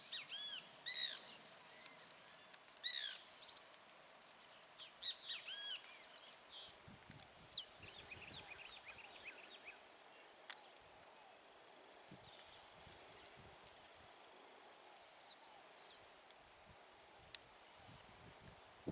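Blue-black grassquit (tiziu) singing among other birdsong. A quick series of sharp, very high notes, about two a second, runs with arched chirps below them for the first six seconds. A loud sweeping note comes about seven seconds in, then only faint scattered calls.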